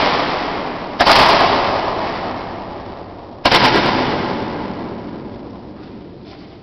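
Two roman candle shots going off inside a WW2 ammunition bunker, about a second in and again about two and a half seconds later. Each is a sharp bang followed by a long echo that dies away over a few seconds.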